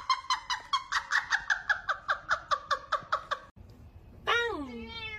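A woman laughing hard in a rapid, even run of high-pitched 'ha' pulses, about five or six a second, for about three and a half seconds. After a short break a cat meows: one long call falling steeply in pitch, then a fainter one.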